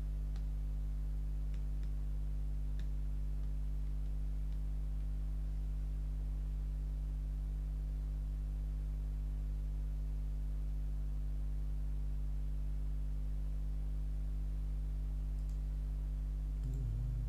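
A steady low electrical hum, mains hum with its overtones, with a few faint clicks in the first few seconds.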